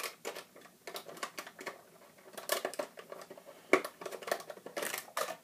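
Cardboard box packaging being handled, with irregular rustles, taps and clicks and one sharp click a little under four seconds in.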